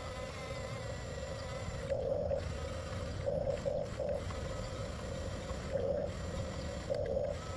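Electric drive motors and gearboxes of a 1/14-scale Huina RC bulldozer whining over a low rumble. The whine swells in short spurts about four times, from about two seconds in.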